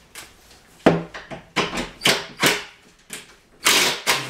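Impact driver driving a 2-inch self-drilling cabinet screw through the wooden face frames in several short bursts, the longest and loudest near the end.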